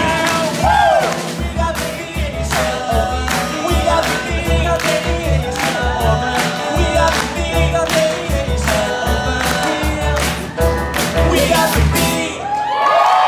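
Three male singers performing a pop medley live over a steady driving beat. Near the end the beat drops out and they hold a final sustained note.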